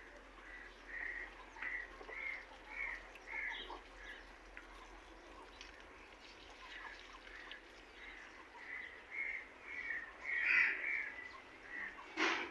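A bird calling in short, evenly repeated notes, about two a second, in two runs with a pause between, against faint outdoor background; a sharp knock just before the end.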